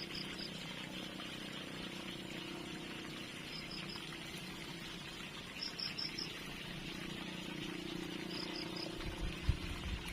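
Insects chirping in short high trills of four or five quick pulses, repeated several times, over a steady outdoor insect hum. A few low bumps come near the end.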